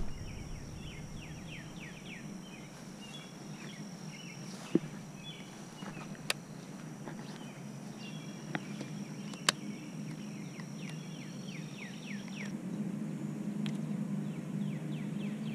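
Birds calling outdoors: many short, quick downward-sweeping chirps, with a steady thin high-pitched whine that cuts off about three quarters of the way through. A few sharp clicks stand out, and a low rumble grows louder near the end.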